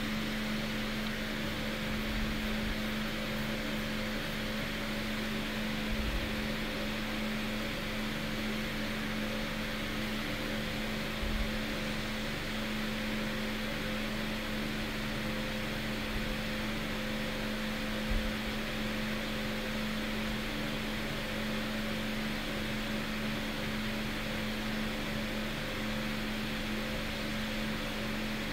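Steady hum with a constant tone over an even hiss, broken by a few soft low bumps.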